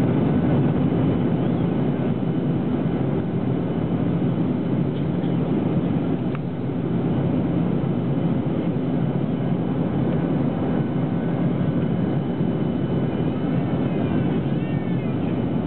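Steady cabin noise inside a jet airliner in flight: the even drone of the turbofan engines and rushing air, with a low hum.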